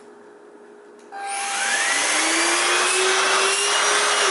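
Deik cordless stick vacuum switched on about a second in. Its motor whine rises as it spins up, then it runs steadily with a loud rush of air, a battery-powered test run.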